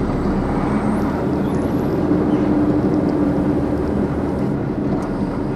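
Renault Premium truck's diesel engine running steadily, heard from inside the cab as the truck manoeuvres slowly, with a steady hum that swells for a moment in the middle.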